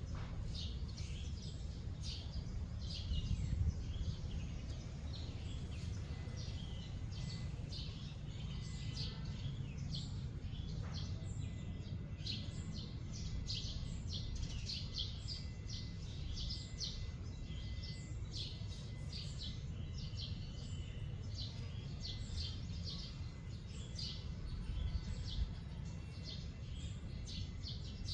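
Small birds chirping busily, short high chirps several a second that overlap throughout, over a steady low rumble of outdoor background noise.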